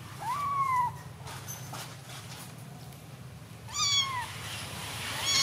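Young kittens meowing: two high-pitched meows about three seconds apart, each rising briefly and then falling, with a third beginning at the end. They are crying because they are wet and cold.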